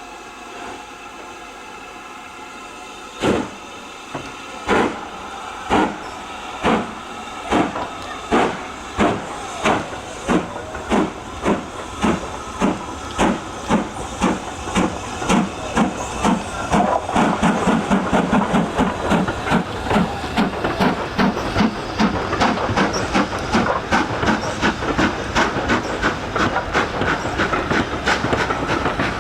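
Steam locomotive starting away: a steady hiss of steam, then about three seconds in the exhaust beats begin, slow and sharp, and quicken steadily into a fast, even run of chuffs as the train gathers speed.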